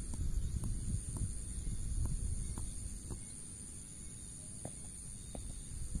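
Steady high-pitched insect buzz over a low wind rumble, with faint scattered ticks and taps.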